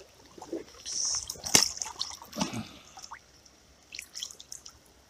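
Water splashing and dripping as a smallmouth bass is lowered by hand into a shallow creek and let go, with one sharp knock about a second and a half in; quieter trickling after that.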